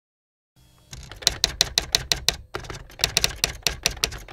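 Computer keyboard typing: quick, even keystroke clicks, about six a second, with a short pause about two and a half seconds in.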